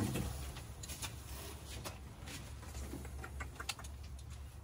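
Faint, scattered light clicks and taps, as of small hardware being handled, over a low steady hum.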